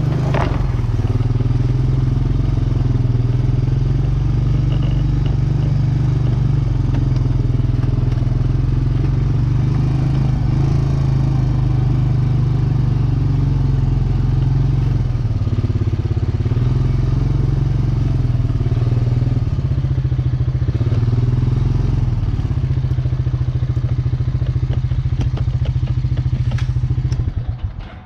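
ATV engine running steadily at a low, even pitch, dropping away sharply near the end.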